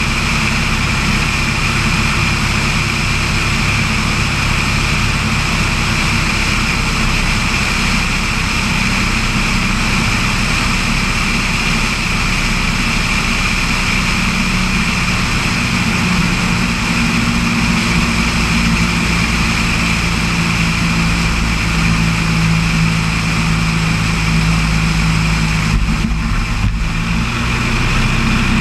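Floatplane's piston engine and propeller running steadily, with small shifts in engine pitch in the second half.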